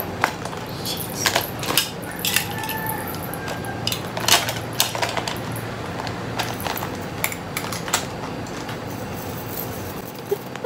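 A clear glitter plastic chain bag being handled: irregular crinkles of stiff plastic and clinks of its metal chain strap.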